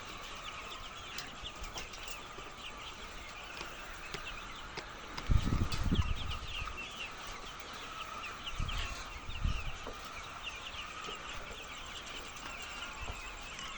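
A large flock of egg-laying hens clucking and calling, with many short calls overlapping continuously. About five seconds in, and again around nine seconds, a few low muffled thumps rise above the flock.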